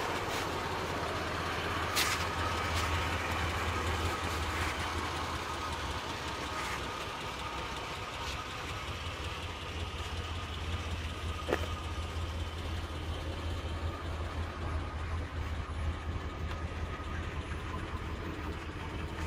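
1993 GMC Jimmy's engine idling steadily, with a couple of light clicks.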